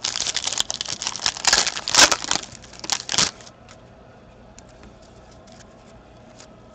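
Foil wrapper of a Panini Certified hockey card pack crinkling and tearing in the hands for about three seconds. After that come only a few faint ticks as the cards are handled.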